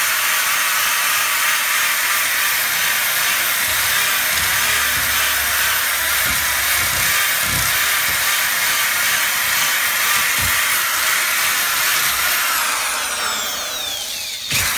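Chicago Electric drill spinning a sanding disc against wood: a steady, high whir with the rasp of the abrasive on the wood. Near the end the drill is lifted off, its motor winds down with a falling pitch, and the sound cuts off suddenly.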